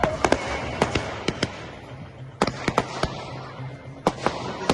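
Professional-grade (category F4) fireworks exploding overhead: an irregular run of sharp bangs with crackling between them, easing off briefly about two seconds in before more bangs follow.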